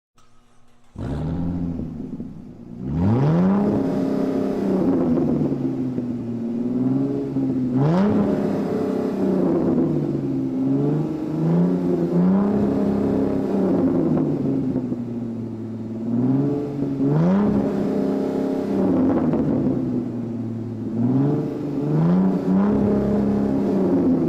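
Supercar engine starting up about a second in, then revved several times, its pitch climbing and falling back about five times between steadier stretches.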